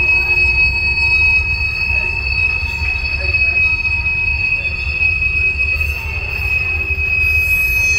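Wheels of empty phosphate hopper cars squealing as the train rolls slowly by: one steady, high-pitched squeal over a low rolling rumble.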